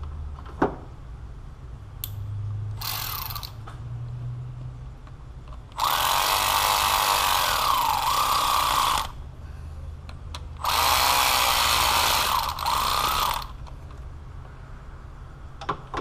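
Cordless power tool running in two runs of about three seconds each, its motor pitch dipping under load as it drives in the ignition control module's mounting bolts. A short burst from it comes a few seconds earlier, and a sharp click comes just after the start.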